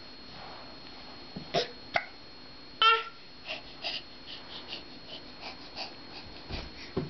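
An 8-month-old baby's small vocal sounds while working at moving on its tummy: a few short grunts, one louder squeal about three seconds in, then a run of short breathy huffs about twice a second.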